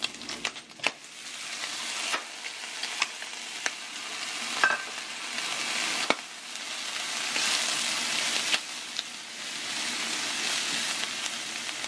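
Bacon sizzling in a frying pan: a steady hiss with many sharp crackles and clicks, growing louder over the first couple of seconds.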